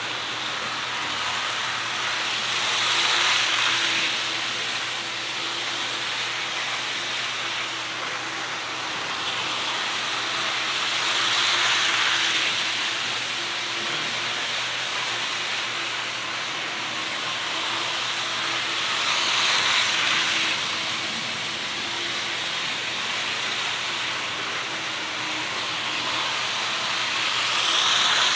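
HO scale model train running laps on a DC-powered layout: a steady rolling hiss of small wheels on track and the running motor, swelling about every eight seconds as the train passes close by.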